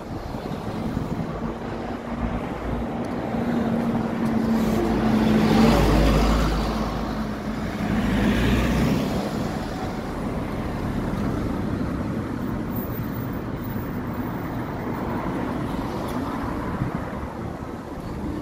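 City street traffic, with a steady engine hum for the first few seconds. A vehicle passes close about five seconds in, loudest around six seconds and fading by nine, over continuous road noise.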